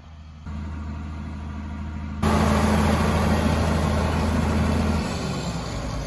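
John Deere tractor's diesel engine running as it pulls up pulling a boom sprayer, abruptly louder about two seconds in, then dropping to a lower, steady idle about a second before the end as it comes to a stop.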